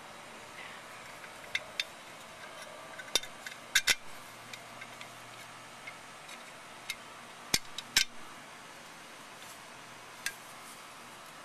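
Scattered sharp metallic clicks and clinks of small parts and tools being handled while the exhaust is refitted to a lawnmower engine, the loudest two pairs of clacks about four and eight seconds in.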